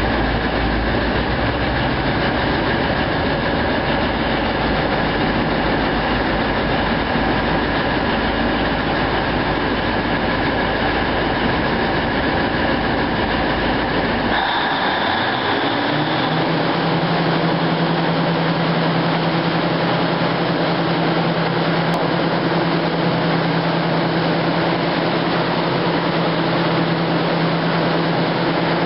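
Demag H285S hydraulic mining shovel running with a loud, steady mechanical drone. About halfway through the deep rumble drops away and a whine rises and then holds steady.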